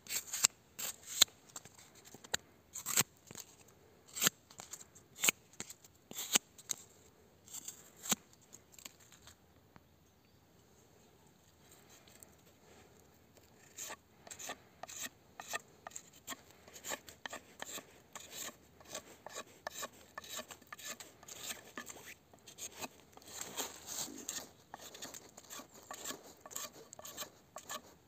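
Tonife Nova fixed-blade knife slicing strips off corrugated cardboard in sharp strokes about once a second. After a few quiet seconds it whittles shavings from a stick of green hazel wood in quicker, denser scraping strokes.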